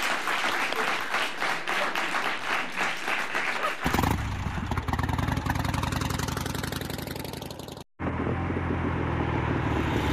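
Studio audience applauding; about four seconds in the applause gives way to the break bumper, a low steady rumble like a motorcycle engine idling. The rumble drops out briefly near eight seconds and then resumes.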